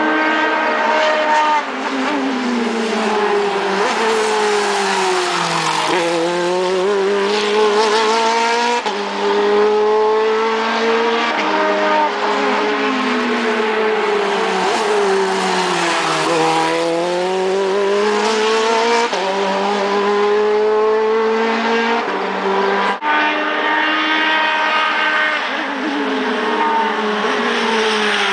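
Race car engines running hard on a road course, their pitch climbing and then dropping sharply every few seconds as they change gear, with more than one car heard at once at times.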